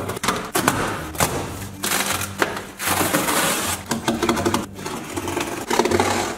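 Box cutter blade sawing through corrugated cardboard in a series of scraping strokes.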